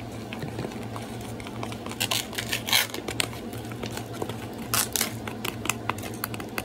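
Thin plastic dessert cup and its packaging crinkling and clicking as it is squeezed and poked with a spoon handle, with louder crackles about two seconds in and again near five seconds, over a steady low hum.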